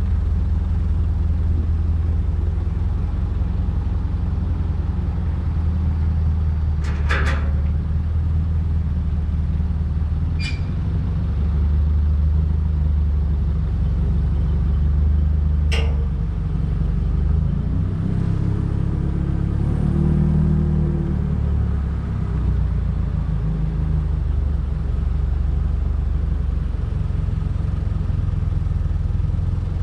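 Hyster forklift engine running steadily as the forklift lifts a heavy steel loader bucket, its note rising briefly about two-thirds of the way through. Three sharp metallic knocks stand out over it, the last about halfway through.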